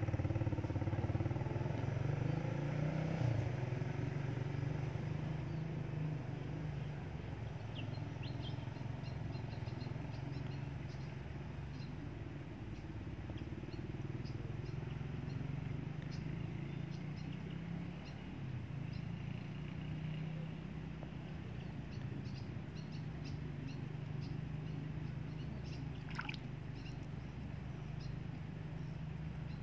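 A motor running steadily with a low droning hum, with faint high chirps and ticks scattered over it.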